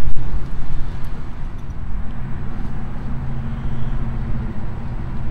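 Steady low drone of motor vehicle noise, with a fluctuating rumble underneath.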